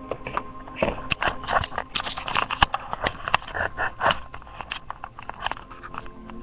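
Irregular crinkling, rustling and sharp clicks of a plastic MRE pouch being handled.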